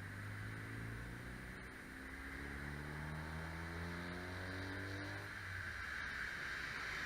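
A motor vehicle's engine running, its pitch climbing slowly as it speeds up, over a steady hiss.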